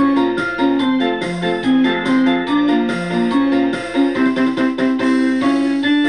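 Background music on a piano-like keyboard: a quick run of notes over sustained chords that changes pitch every fraction of a second.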